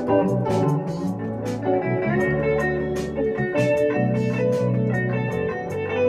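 A live rock band playing, with electric guitars and keyboard over a bass line and a steady beat of sharp hits about twice a second.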